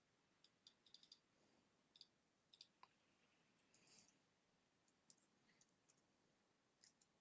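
Near silence with faint, scattered computer mouse clicks, some in quick pairs, about a dozen in all.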